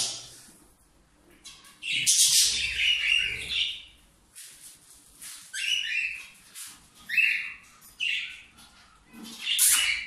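Hand-tamed young parrots calling: one long, harsh call about two seconds in, then several shorter chirping calls spaced about a second apart.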